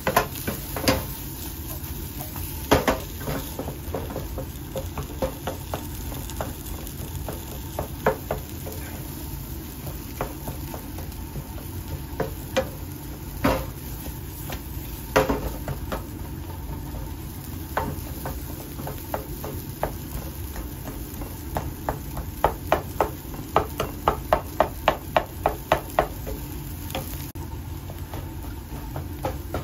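Mashed potatoes sizzling in a non-stick frying pan as a wooden spatula stirs and scrapes them, with sharp knocks of the spatula against the pan. In the last third comes a quick run of taps, about three a second.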